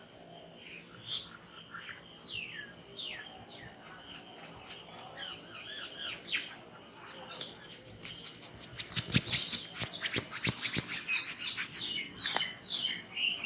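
Small birds chirping over and over in short, quick, falling chirps. Scattered sharp clicks and taps join in from about halfway through and grow denser near the end.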